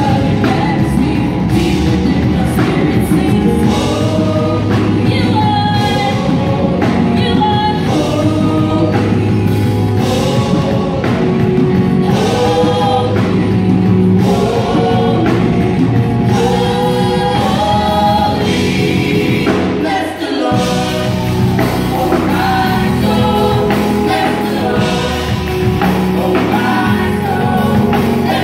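Live gospel vocal ensemble of men and women singing together into microphones over instrumental accompaniment with a steady low bass line.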